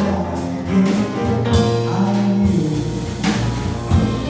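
Instrumental jazz backing music playing between sung phrases of a ballad, with sustained chords over a low bass line.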